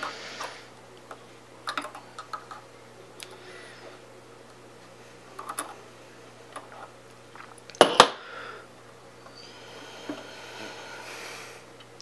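Soldering work on a turntable's tonearm circuit board: scattered small clicks and taps of the iron against the board and wires, with one sharp double knock about eight seconds in and a soft hiss near the end, over a steady low hum.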